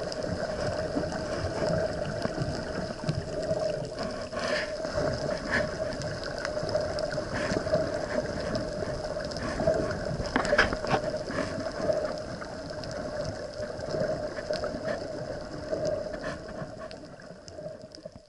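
Underwater sound picked up by a submerged camera: a steady hum over a wash of water noise, with scattered sharp clicks, fading out near the end.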